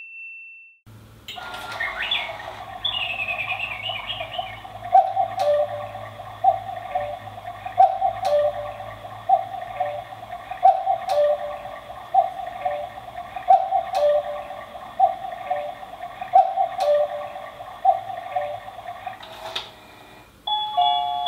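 Quartz cuckoo clock playing its recorded hourly cuckoo call with echo, a two-note "cuck-oo" repeated steadily about once every second and a half and stopping near the end. Bird chirps sound in the recording's background near the start.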